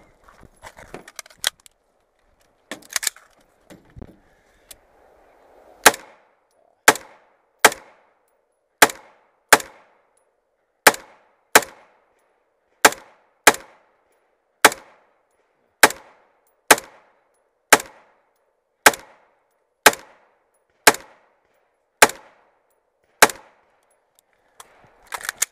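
An AR-15-style carbine is fired from inside a vehicle's cab: about eighteen single shots at a steady pace of roughly one a second, starting about six seconds in. Before the shooting there are a few scattered clicks and knocks of handling.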